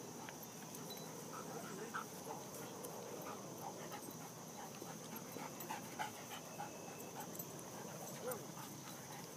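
Dogs play-wrestling, panting, with short scattered vocal noises throughout.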